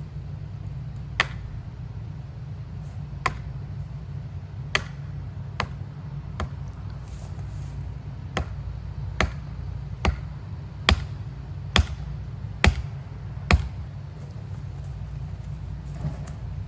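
A series of sharp knocks, about a dozen, one every second or so and coming closer together in the second half, over a steady low rumble like an engine running.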